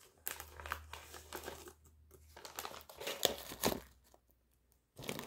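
Plastic snack bag of popcorn crinkling in irregular crackles as a hand reaches in and takes popcorn out, pausing about four seconds in and crinkling again near the end.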